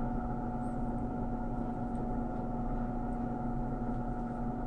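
Steady electrical hum of a small motor or fan running, holding one even pitch, with a faint tick or two from handling small parts.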